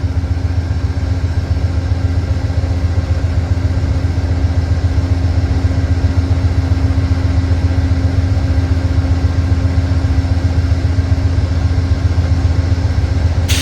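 Amtrak P42 Genesis diesel locomotives idling with the train standing at the platform: a steady low engine rumble with a constant hum.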